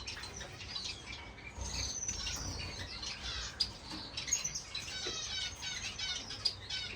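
Many captive finches chirping and calling at once in a bird room: a dense chatter of short, high, repeated chirps from several birds.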